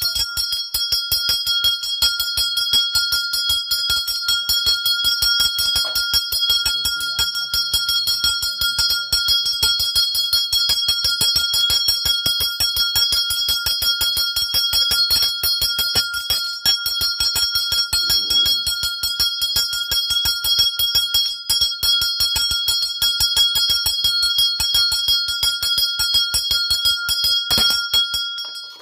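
Puja hand bell rung rapidly and without pause, its clapper striking several times a second over a clear, steady ringing tone. It starts abruptly and stops just before the end.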